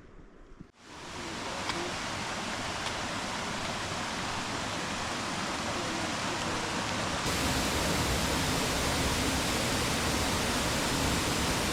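Rushing water of a mountain stream, a steady dense rush that steps up in loudness about seven seconds in.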